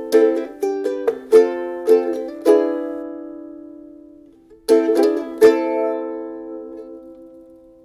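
Soprano ukulele played: a run of quickly plucked notes, then a chord left to ring and fade, followed by two more strokes about two seconds later that ring out and die away.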